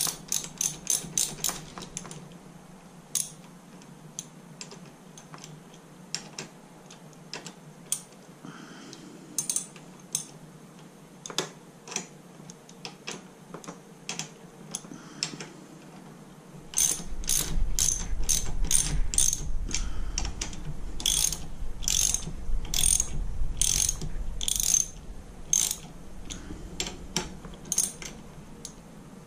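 Socket ratchet clicking as bolts are turned: a quick run of clicks at the start, scattered single clicks through the middle, then a louder, denser run of clicks over a low rumble from about two-thirds of the way through.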